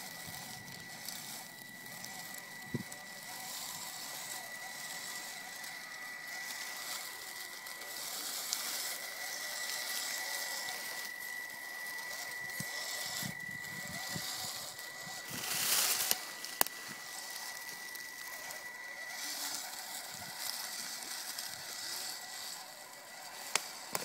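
Electric RC rock crawler (Losi) creeping over dry leaf litter: a steady high whine from its motor and gearing under the crunch and rustle of its tyres in the leaves, with a louder rustle about fifteen seconds in and a few sharp clicks.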